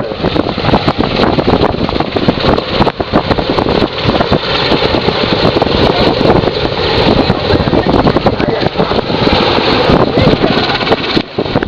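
Royal Navy Merlin helicopter hovering: loud, steady rotor and turbine noise, with wind buffeting the microphone.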